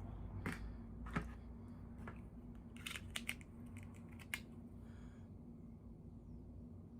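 Small clicks and snaps of toy packaging being opened and handled, scattered through the first part, with a quick cluster about three seconds in.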